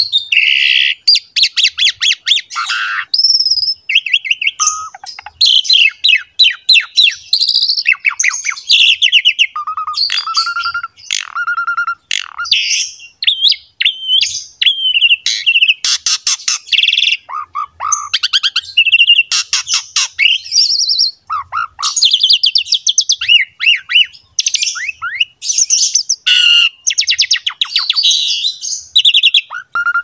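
Asian pied starling (jalak suren) singing nonstop in a long, varied run of whistles, fast rattling trills and harsher notes, with only brief pauses.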